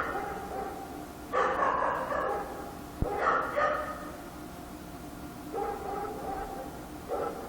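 Dog barking in short bursts, loudest in the first half, then fainter, sparser barks after about five seconds. A sharp click comes about three seconds in.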